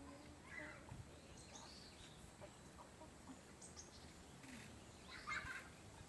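Faint, scattered chirps and short calls of small songbirds, with a louder cluster of chirps near the end.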